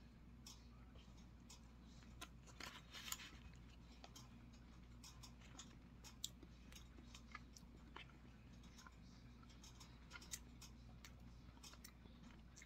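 Near silence with faint, scattered mouth clicks of someone chewing a raisin, a little more of them about three seconds in, over a low steady hum.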